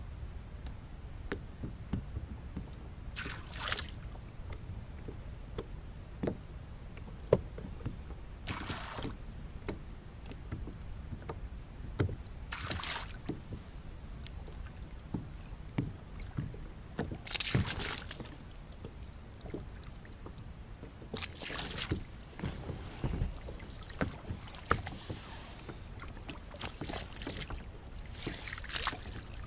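Water lapping and splashing against a plastic kayak hull, with a hissy wash every few seconds over a low wind rumble on the microphone. Small knocks and clicks from the kayak and fishing gear come through throughout.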